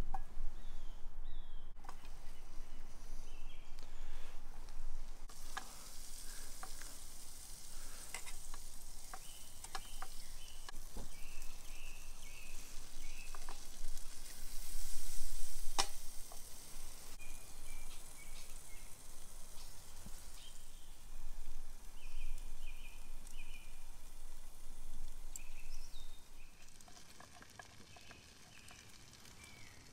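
Butter and then vegetables frying in a hot frying pan over a wood-fired stove: a steady sizzle that swells about halfway through and fades near the end, with clicks of a utensil stirring in the pan.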